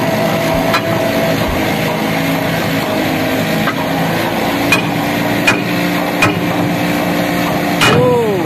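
Hammer striking a steel vacuum plug in a ship's cargo-hold floor to knock it loose: about six sharp metallic knocks with a short ring, roughly a second apart. A steady machinery hum runs underneath.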